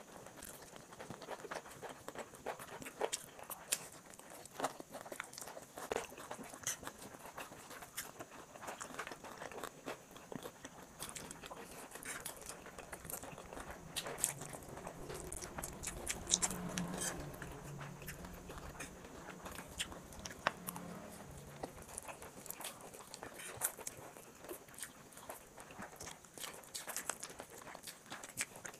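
Two people eating stir-fried chowmein noodles with forks close to the microphone: wet chewing and slurping of noodles, with many small sharp clicks scattered throughout.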